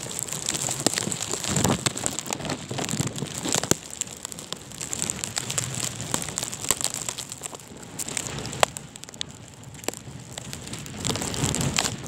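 Wind-driven snow and sleet striking the phone and its microphone: many small, irregular ticks and crackles over a steady hiss.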